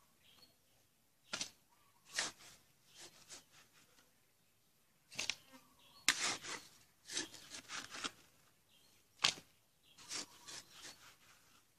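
Hands scooping moist potting soil and dropping it into black plastic nursery pots: short, irregular rustling scrapes, several in a row with pauses between.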